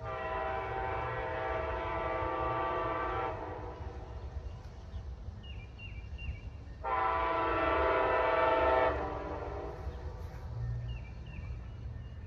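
Locomotive air horn sounding two long blasts, several tones together as a chord: the first about 3 seconds long, the second about 2 seconds long and louder, starting about 7 seconds in. Two long blasts are the signal a stopped train gives before it moves off. A steady low rumble runs underneath, and faint bird chirps fall between the blasts.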